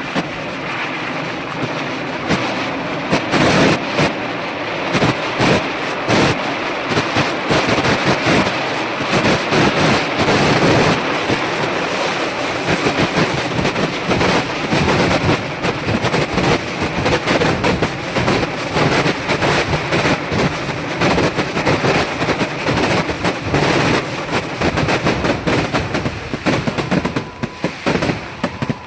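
Kerala temple-festival fireworks (vedikettu) going off in a dense, rapid barrage, the bangs following so closely they run together into a continuous crackle, thinning slightly near the end.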